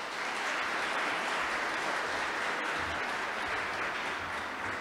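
An audience applauding after a speech, a steady dense patter of many hands clapping that eases slightly near the end.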